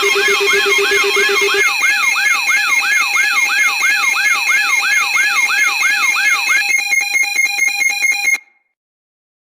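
Layered electronic alarm tones: a siren-like tone sweeps up and down about three times a second over several steady high tones. It switches to rapid beeping shortly before it cuts off suddenly, nearly a second before the end.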